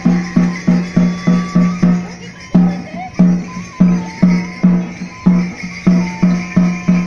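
Procession music: a pitched drum struck in a steady beat of about three strokes a second, with a thin, wavering melody line above it.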